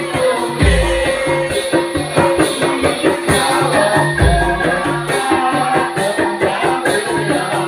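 Live music for a Topeng Ireng dance: fast, steady percussion with jingling rattles over a held melodic line, and a deep drum hit about every three and a half seconds.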